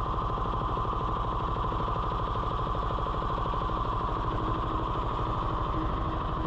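A fishing boat's inboard engine running steadily, with an even, rapid pulse.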